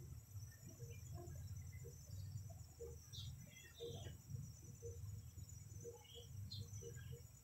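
Faint, steady high-pitched trilling of insects over a low, uneven rumble, with a few short chirps scattered through.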